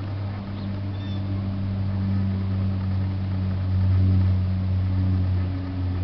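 A motor running with a steady low hum; faint high bird chirps about a second in.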